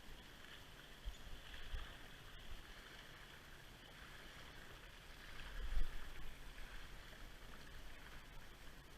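Steady rush of flowing river water, with a few low bumps on the microphone, the loudest about two-thirds of the way through.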